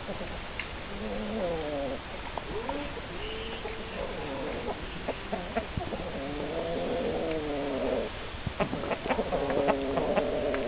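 Chickens making drawn-out, wavering calls, several overlapping one another, with a run of sharp taps or clicks near the end.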